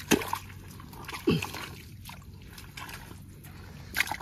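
Muddy water sloshing and splashing as hands work down into a water-filled eel burrow. Two plops falling in pitch come near the start and about a second in, and there is another splash near the end.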